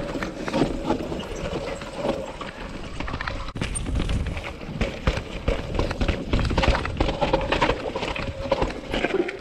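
2020 Norco Sight mountain bike descending a rocky dirt trail: tyres rolling over rock and dirt while the frame and drivetrain rattle, with a stream of irregular knocks as the wheels strike rocks.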